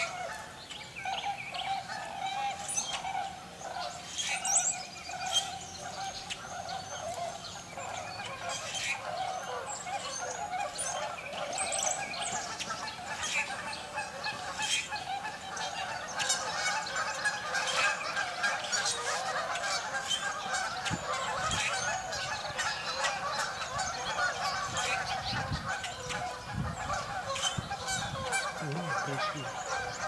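A large flock of tundra swans and Canada geese calling without a break, a dense chorus of many overlapping honking calls, with short, higher calls of smaller birds scattered on top.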